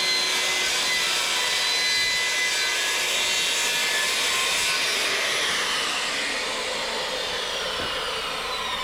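Electric power saw running and cutting through the tile base, a loud steady whine. From about six seconds in, the motor winds down with a falling pitch.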